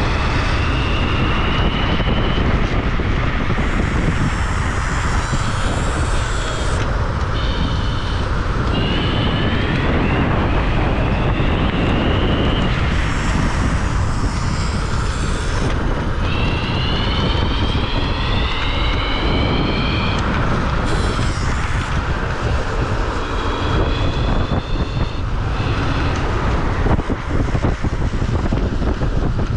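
Electric scooter motor at track speed, its high whine rising in pitch on each acceleration and breaking off when the throttle is released, several times over. A heavy, steady rumble of wind on the microphone runs underneath.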